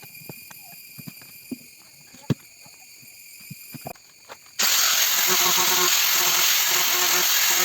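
A few light clicks and knocks of small parts being handled. About four and a half seconds in, a handheld power tool such as a drill starts abruptly and runs steadily with a loud hiss.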